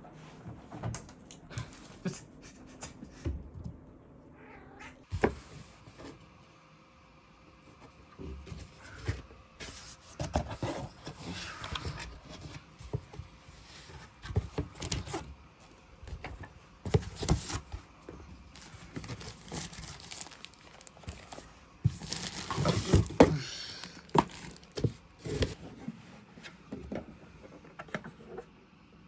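A domestic cat meowing, among clicks and rustles of cardboard packaging and plastic parts being handled.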